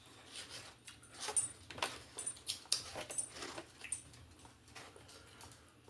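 Close-up eating sounds: chewing and mouth clicks, with a few light clinks of a fork on a plate.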